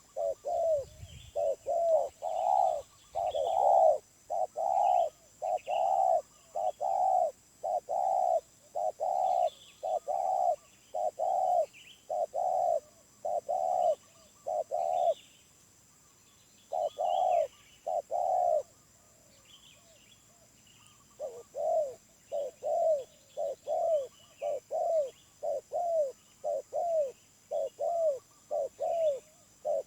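Spotted dove cooing: a long run of short coo notes, about three every two seconds, breaking off for a couple of seconds past the middle, then starting again. Faint chirps of small birds behind.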